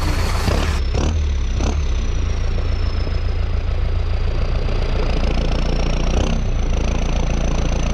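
Small DC electric motor of a homemade toy tractor running steadily while it drives along towing a tanker, with a high whine that sags slightly in the middle and rises again near the end.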